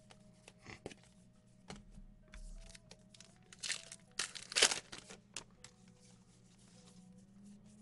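Baseball cards and plastic packaging being handled: crinkling and rustling in short, scattered bursts, loudest about four to five seconds in.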